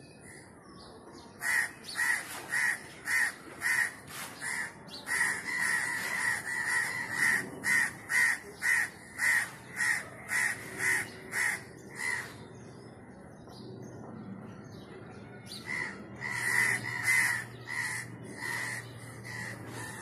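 House crows cawing: a quick run of caws, about two or three a second, lasting some ten seconds, then after a pause of a few seconds a second, shorter run.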